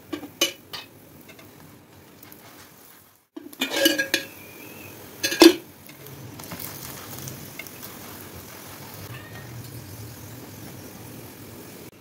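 Metal spoon and slotted spatula clinking and scraping against a flat nonstick tawa in a few sharp knocks near the start and a cluster around four to five seconds in, the loudest just after five seconds. After that, a faint steady sizzle of a paratha frying in ghee.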